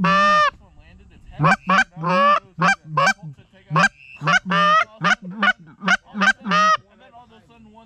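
Canada geese honking and clucking: a fast run of about fifteen loud, short honks with a few longer ones mixed in, stopping about a second before the end.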